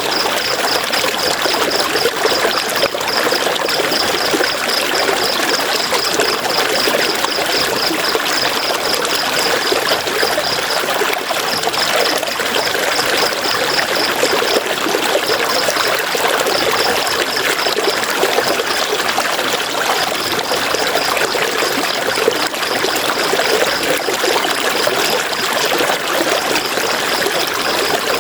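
River water flowing steadily, with a continuous rushing trickle. Over it runs a high, rapidly pulsing chirp in long trains that breaks off briefly a few times.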